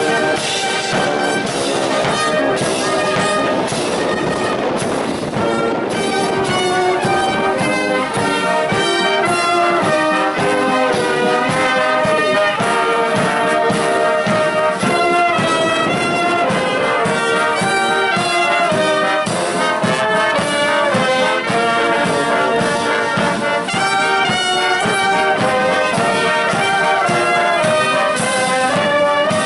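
Military band playing a march, led by trumpets and trombones.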